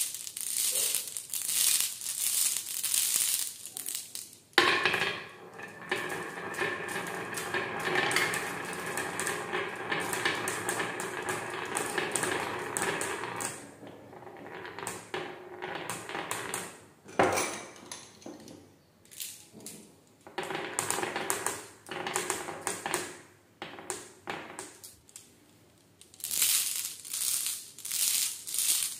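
Glass marbles clinking together in a cupped hand, then a long run of marbles rolling and clacking along a wavy wooden groove track, with one sharp click partway through. More marbles clink in the hand near the end.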